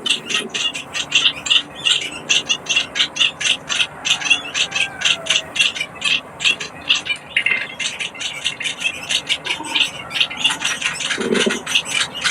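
Munias (bondol) chirping rapidly, a steady run of short high chirps about five a second, typical of chicks begging to be fed.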